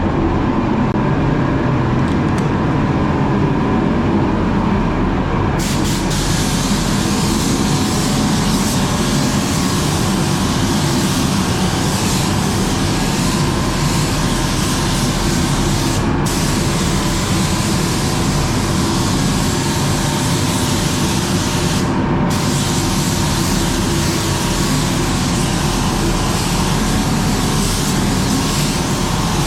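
Steady low mechanical rumble; about six seconds in, a paint spray gun starts a continuous loud hiss of spraying, with two brief pauses where the trigger is released.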